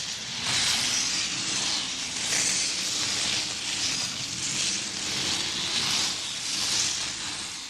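Skis hissing and scraping over snow on a downhill run, the sound swelling and easing every second or so. It fades out near the end.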